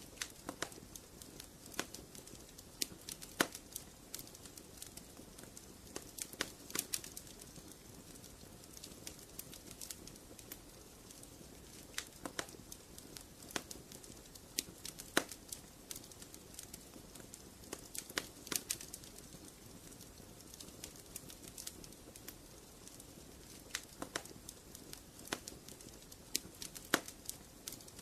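Wood fire crackling in a fireplace: irregular sharp snaps and pops, a few louder than the rest, over a soft steady rush of flame.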